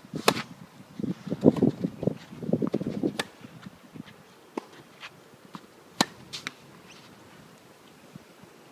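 A tennis rally: sharp pops of racket strings striking the ball and of the ball bouncing, a few seconds apart. The loudest come about a third of a second in and about six seconds in. Bursts of scuffing noise fill the first three seconds.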